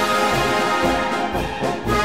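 Brass-band music with a steady beat of about two beats a second.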